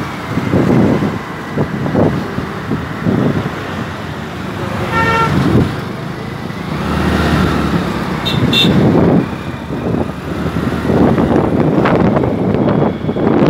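Wind buffeting the microphone on a moving two-wheeler amid road traffic, with a vehicle horn tooting once about five seconds in. Two short high beeps follow a few seconds later.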